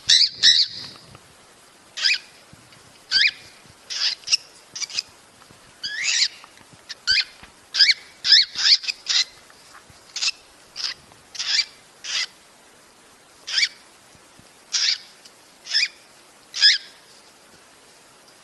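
Cockatiel mating calls: a series of short, sharp, shrill calls repeated at irregular intervals of about a second, coming thickest a third of the way in and then spreading out.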